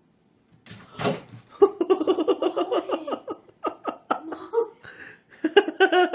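A person laughing in quick, repeated bursts, starting about one and a half seconds in, pausing briefly near five seconds, then laughing again.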